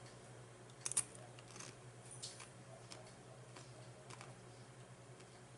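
Quiet eating sounds: a couple of sharp clicks about a second in, then scattered soft clicks and ticks from chewing and handling the food, over a faint steady hum.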